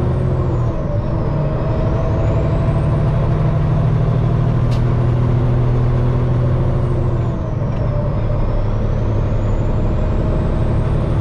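Peterbilt semi truck's diesel engine pulling steadily, heard from inside the cab while the truck is under way. The engine note breaks with a brief dip about a second in and again about seven seconds in, settling at a new pitch each time, as gears are changed.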